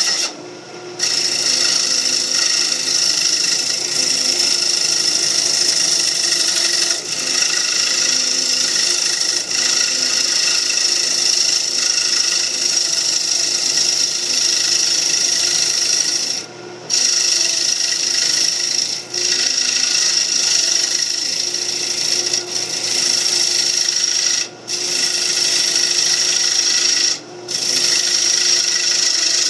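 A mahogany bowl spinning on a wood lathe with a tool held against the wood, making a steady hiss, broken a few times by brief gaps where the tool lifts off.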